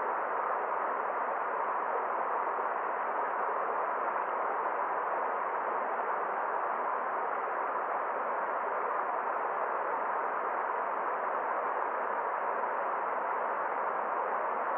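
Forest stream running, a steady, even rush of flowing water.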